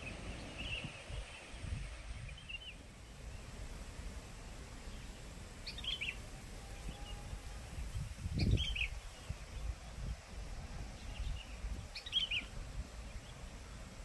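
Strong wind buffeting the microphone in gusts, with a bird giving short chirps, three of them clear about three seconds apart in the second half.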